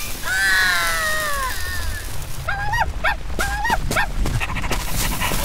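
A small animal's cries, laid in as a sound effect: a falling whimper, then a quick run of short yelps that each rise and fall in pitch. A low rumble runs underneath.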